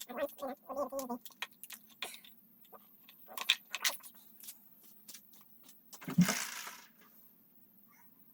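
Small hard objects clicking and clinking in scattered taps, then a single thump with a brief clatter about six seconds in.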